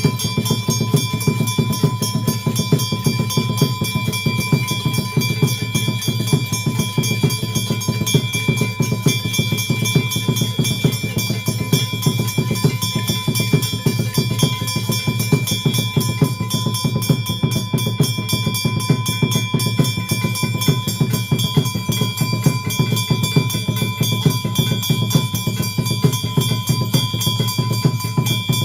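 Temple drums beaten in a fast, unbroken rhythm, with bells ringing steadily over them during a puja.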